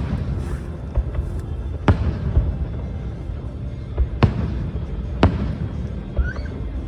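Aerial fireworks shells bursting: several sharp bangs, the strongest at the start and about two, four and five seconds in, over a continuous low rumble.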